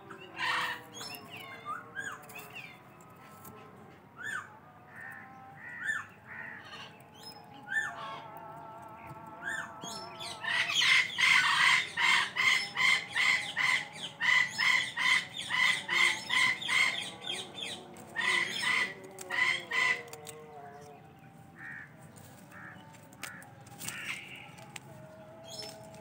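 Indian ringneck parakeet calling: scattered short chirps at first, then a long run of loud calls repeated about twice a second for several seconds near the middle, then softer calls again.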